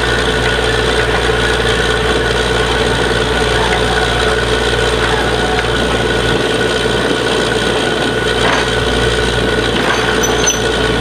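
Truck-mounted borewell drilling rig running steadily and loudly, its engine holding one even pitch throughout.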